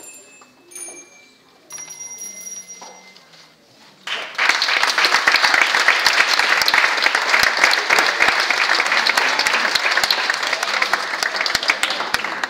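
A few short, high ringing notes, then about four seconds in the audience breaks into loud applause that goes on to the end.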